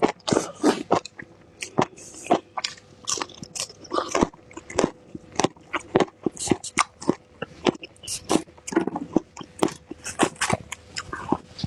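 Close-up chewing and biting of fresh bird's-eye chili peppers and enoki mushrooms: a rapid, irregular run of crunchy bites and chews.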